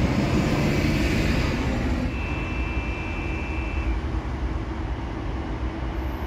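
Motor vehicle running: a steady engine and road noise, heaviest in the low end, with a thin high tone for about two seconds partway through.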